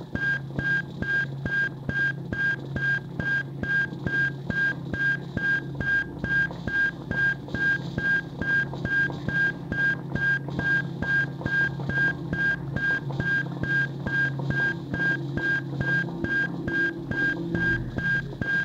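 Live looped electronic music: a high electronic beep pulses on and off at an even rate of a little over two a second over a steady low electronic drone.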